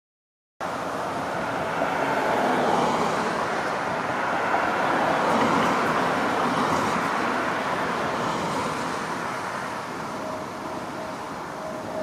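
Road traffic: a car passing on the road, its tyre and engine noise swelling to a peak around the middle and then fading, over a steady background of traffic. The sound starts abruptly about half a second in.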